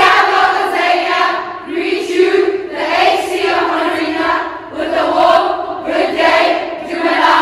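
A group of women singing together in unison, in sustained phrases of a second or two each.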